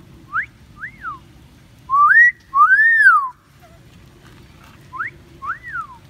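Common hill myna giving a two-note wolf whistle three times, each a quick rising note followed by a rising-then-falling note. The middle whistle is the longest and loudest.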